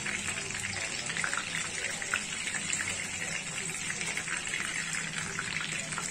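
Chicken drumsticks shallow-frying in hot oil in a non-stick pan: a steady sizzle dotted with many small crackling pops, the spluttering that the cook takes as a sign the chicken is nearly cooked.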